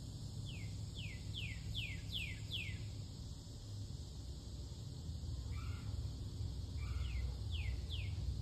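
A songbird singing a quick run of six downslurred whistles, then after a pause two rougher notes and three more downslurred whistles. Underneath are a steady low rumble and a steady high hiss.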